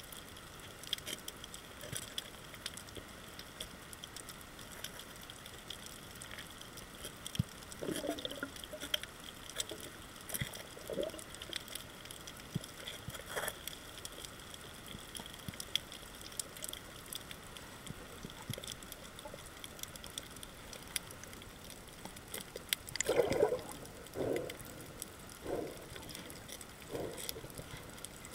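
Underwater sound on a coral reef: a constant faint crackle of small clicks, with a few short bubbling, gurgling bursts, the loudest cluster a little past twenty seconds in.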